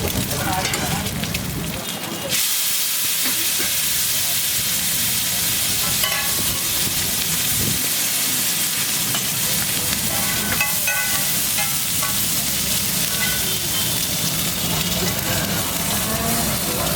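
Food sizzling and frying on a hot street-stall griddle. The sizzle jumps louder and brighter a little over two seconds in, then holds steady.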